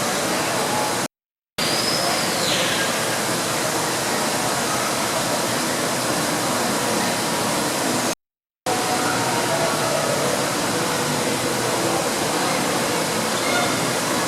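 Steady rushing noise of falling water with a faint murmur of voices. It cuts off completely twice for about half a second. About two seconds in there is a faint high sweeping call.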